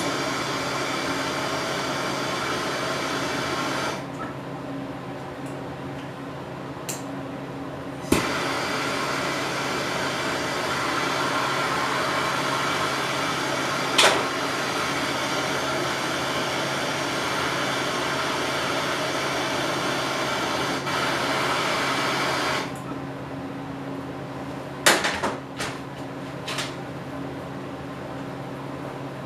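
MAP gas torch flame hissing steadily as it heats a soldered clutch-cable end fitting to melt the solder. The hiss drops back about four seconds in, comes back with a sharp click about eight seconds in, and stops near twenty-three seconds. A few light metallic clicks follow near the end.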